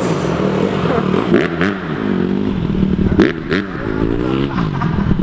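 Dirt bike engine revving up and down over and over, its pitch rising and falling several times, with a few sharp clacks in between.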